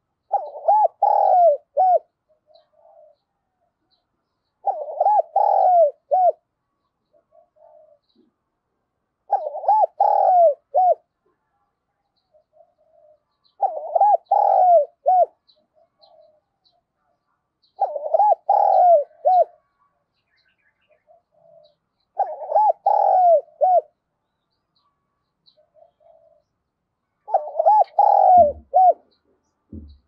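Spotted dove cooing: its multi-note song phrase repeated seven times, about every four seconds, with soft single notes between phrases. A couple of low thumps near the end.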